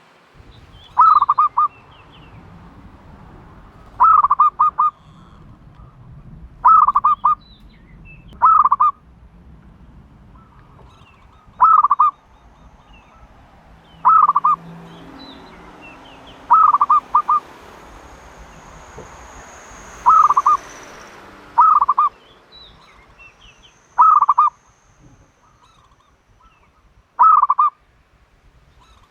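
A turtle dove calling repeatedly. Each call is a short, loud phrase of three or four quick pulsed coos, and the calls come about every two and a half to three seconds.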